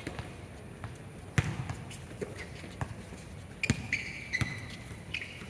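A basketball bouncing on a hard outdoor court: a handful of irregular thuds, the loudest about a second and a half in. High short squeaks come in over the second half.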